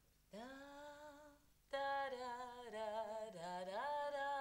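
A woman singing a slow, classical-style melody without words, in long held notes with vibrato: a short first phrase, then after a brief breath a longer line that dips and climbs in pitch.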